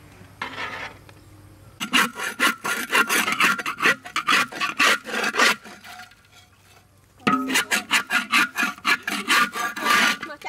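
Metal spoon scraping stuck-on rice crust off the bottom of a large metal wok in quick back-and-forth strokes, about three or four a second. There are two bouts of scraping with a short pause in the middle.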